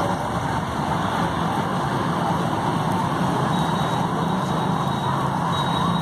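Steady background noise with a constant low hum.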